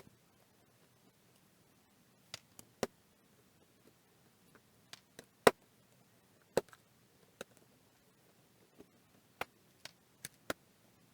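Irregular sharp clicks and taps, about fifteen of them, from a small industrial camera and its parts being handled on a workbench. The two loudest come about five and a half and six and a half seconds in.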